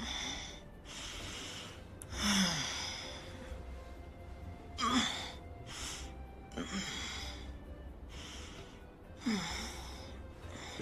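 A person sighing about four times, each breath out falling in pitch, over quiet background music.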